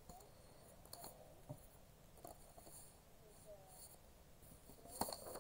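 Faint rustling and light taps of paper being handled: printed sheets and a card in an envelope shifted on a desk, with a short, louder rustle near the end.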